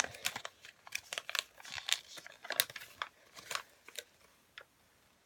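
Paper instruction leaflet rustling and crinkling as it is unfolded and handled, a run of short crackles that stops about four seconds in.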